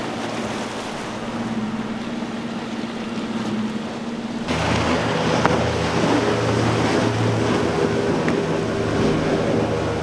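Outboard motors on center-console boats running fast, with the hiss and splash of spray off the hulls. About four and a half seconds in, the sound changes suddenly to a second boat with a deeper, louder engine note and more spray.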